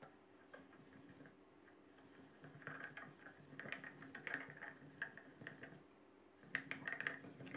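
Stone pestle stirring and pressing a liquid chili-lime dressing in a granite mortar to dissolve the coconut sugar: faint, irregular soft taps and wet squelches. These start a couple of seconds in, pause briefly, then resume near the end.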